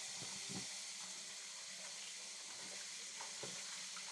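Kitchen tap running a steady stream of water into a plastic colander of pumpkin seeds in a stainless steel sink, as hands rinse the seeds, with a few faint knocks.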